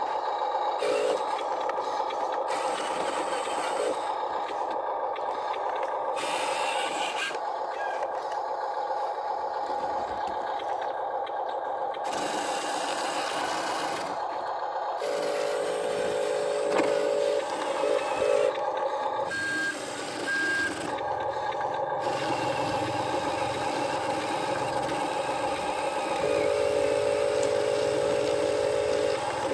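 Huina remote-control toy dump truck driving on dirt: its electric drive motor and gearbox whine in steady tones that change pitch several times as it speeds up and slows, over the gritty scrape of its tyres. Two short high beeps come about two-thirds of the way through.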